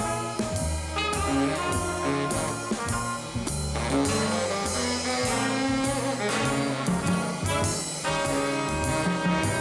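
Jazz orchestra playing a bluesy ensemble passage. The saxophone and brass sections sound held chords over a moving bass line, with cymbals keeping time.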